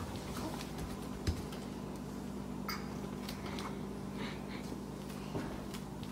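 Faint scattered clicks and a soft knock about a second in, over a steady low hum: a plastic toy shopping cart rolling across a hardwood floor, with small footsteps.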